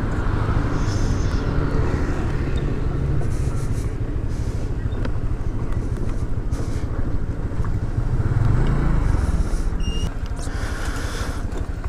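Motor vehicle engine and road noise with a steady low wind rumble on the microphone, swelling briefly near the start and again about eight seconds in.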